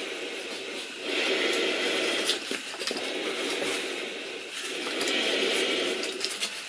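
Slow, heavy breathing through a rubber gas mask and its filter: long hissing breaths that swell and fade, with a few light rubbing sounds of a gloved hand on the mask.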